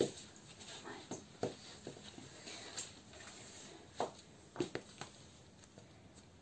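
Scattered soft taps and scuffs of molded pool slides on a wooden floor as the wearer gets up and shifts her feet: a few faint knocks near the start and a small cluster about four to five seconds in.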